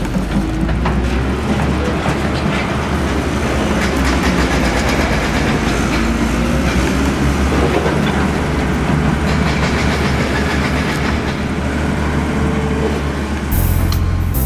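Steady mechanical rumbling with a fast, dense clatter of clicks. Guitar music takes over about a second before the end.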